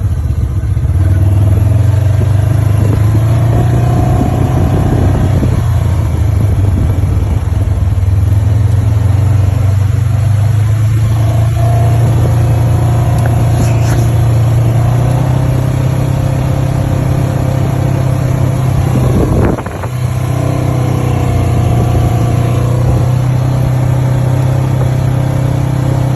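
ATV engine running under way, a steady loud drone with a short dip in loudness about three quarters of the way through.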